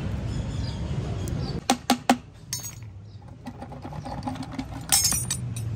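Sharp metal-on-metal clinks from auto rickshaw engine parts and tools being handled: three in quick succession about two seconds in, and another short cluster near the end.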